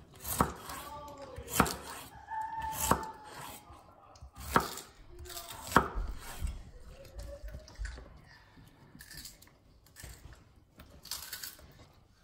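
Chef's knife chopping a white radish on a bamboo cutting board: five sharp chops roughly a second apart over the first six seconds, then softer, scattered taps and clicks.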